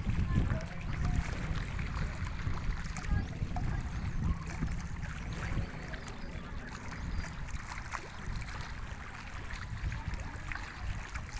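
Wind buffeting the microphone in uneven gusts, a low rumble, over the wash of choppy open river water.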